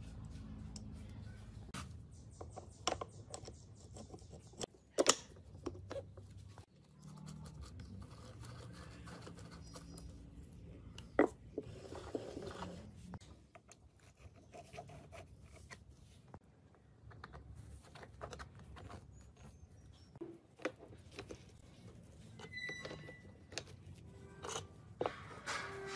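Sharp metallic clicks, taps and scrapes of steel gears and parts of an antique lathe's gearbox and apron being handled and fitted together by hand, over a low background hum that comes and goes.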